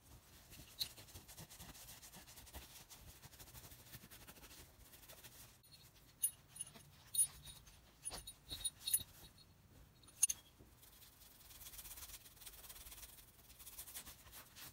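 Faint rubbing and handling of a cloth wiping over the cast-iron frog of a Stanley No. 5 bench plane, with a run of light metallic clinks from about six to ten seconds in.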